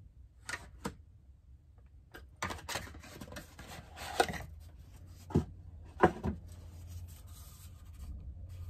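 Cardboard perfume box being opened and handled: rubbing and scraping of the card, with a series of sharp taps and knocks, the loudest about five and six seconds in.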